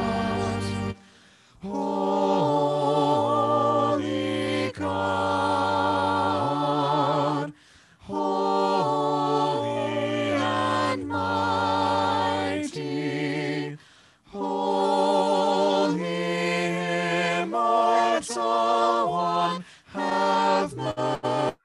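A small vocal ensemble of two men and two women singing a cappella in harmony. The chant comes in short phrases with brief breaks between them.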